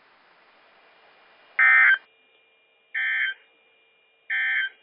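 Three short bursts of NOAA Weather Radio SAME digital data, each a harsh warbling tone about half a second long, about 1.3 seconds apart. This is the end-of-message code that closes the flood warning broadcast.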